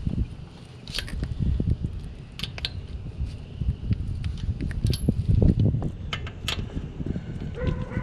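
Metal clinks and taps of a lug wrench and loosened lug nuts being handled, over an uneven low rumble, with a brief squeal near the end.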